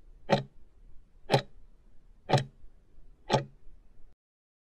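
Countdown-timer tick sound effect, ticking once a second, four ticks, as the test timer runs out its last seconds.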